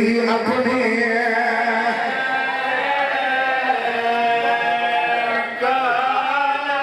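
A man's voice chanting a sung mourning recitation for Imam Hussain, a zakir's lament in long, melodic held notes.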